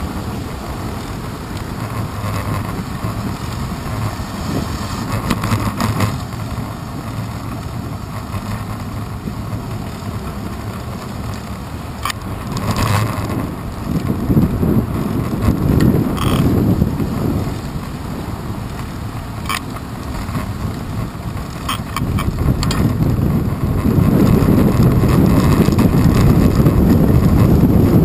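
Bicycle rolling along a paved path, heard from a handlebar-mounted GoPro Hero 2: steady rumble of tyres and wind on the microphone, with a few sharp knocks and rattles from bumps. The wind noise grows louder near the end.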